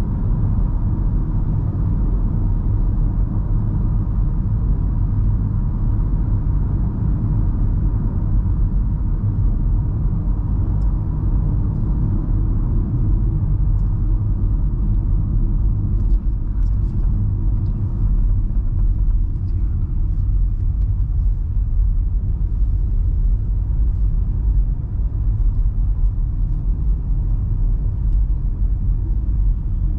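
Steady low rumble of an MG Hector Plus SUV on the move: road and drivetrain noise from the 1.5-litre turbo petrol car under way, even throughout.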